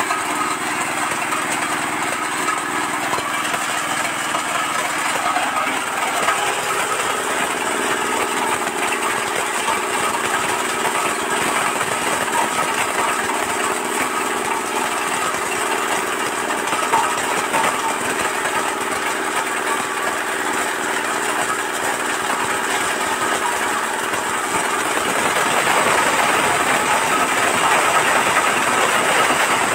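Areca nut cracking machine running under its engine, a steady drone with a dense rattle of nuts being cracked as whole areca nuts are fed into the hopper. It grows louder near the end.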